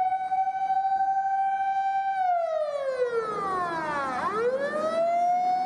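An emergency-vehicle siren with one pitched tone that holds steady, slides down over about two seconds, then sweeps quickly back up and holds again.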